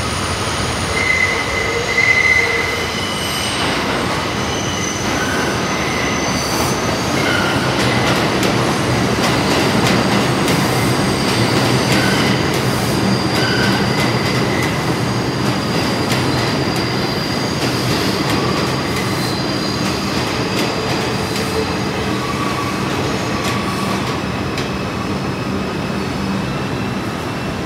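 New York City subway train of R142-series cars moving along the express track in an underground station, its steel wheels squealing on the rails over a steady rolling clatter. Several squeal tones come and go throughout.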